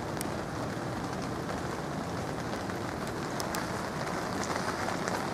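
Steady hiss of rain falling on a wet street, with a few sharp drop ticks.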